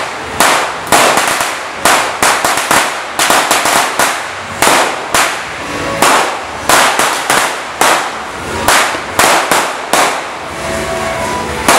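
A Judas's belt (sinturon ni Hudas), a long string of firecrackers, going off in an unbroken chain of sharp bangs, about two or three loud ones a second with rapid crackling between them.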